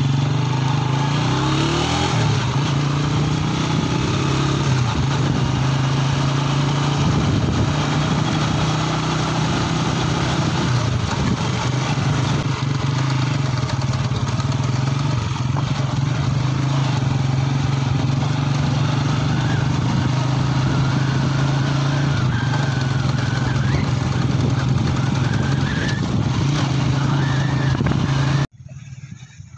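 Motorcycle engine running at a steady speed while riding, with wind noise on the microphone. Cuts off suddenly near the end.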